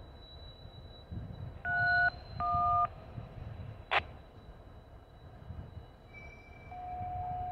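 DTMF touch-tone digits sent over a railroad radio, heard through a scanner: two half-second dual-tone beeps, then a sharp squelch click. Near the end a short high beep is followed by a long steady lower tone.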